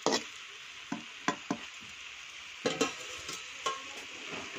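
A spatula stirring jackfruit curry in a large kadai, scraping and knocking against the pan now and then over a steady sizzle of the cooking food.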